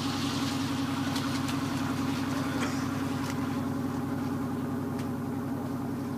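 Fishing boat's engine idling steadily with an even pulsing note, over a few light clicks and knocks from handling fish. A hiss runs alongside it and fades out about halfway through.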